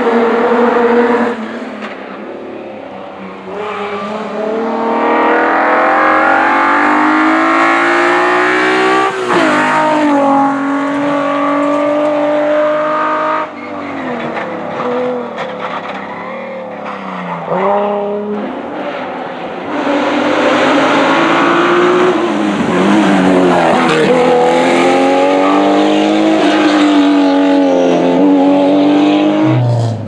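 Historic rally cars at full throttle on a tarmac stage, one after another, engines revving hard up through the gears. Each climb in pitch ends in a sharp drop at an upshift, several times over.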